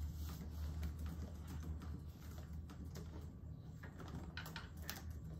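Several people typing on laptop keyboards, irregular clicking of keys, over a low steady hum.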